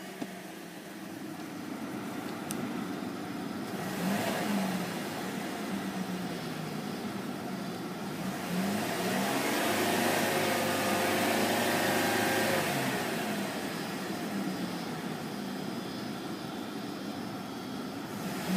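Holden VE Commodore's engine idling, blipped briefly about four seconds in, then revved up and held near 3,000 rpm for a few seconds before dropping back to idle.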